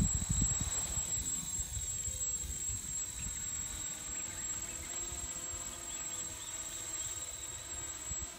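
Small quadcopter's electric motors and propellers whining as it lifts off and climbs, the pitch rising over the first few seconds, then settling into a steady buzz of several tones as it hovers. Low buffeting rumble of wind on the microphone runs underneath.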